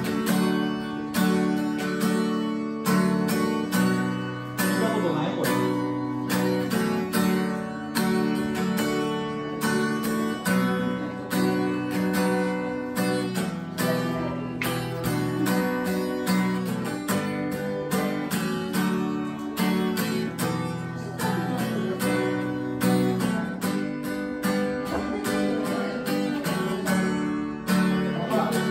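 Acoustic guitar strummed in a steady rhythm, with chords played as an instrumental passage and no singing.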